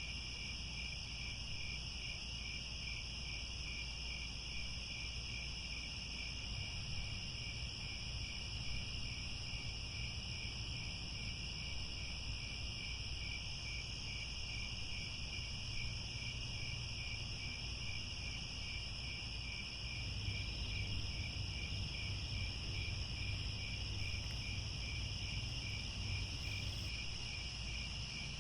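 A chorus of crickets trilling steadily, one of them pulsing at about two or three chirps a second, over a low rumble that grows a little louder about twenty seconds in.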